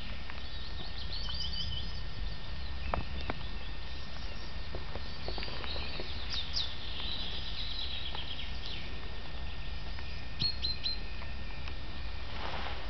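Small songbirds chirping and trilling in short high phrases, over a steady low rumble. A few sharp clicks come about three seconds in.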